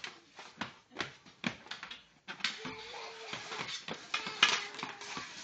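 Floor hockey sticks and ball clacking and tapping on a hard floor in irregular knocks, with a louder hit about four and a half seconds in.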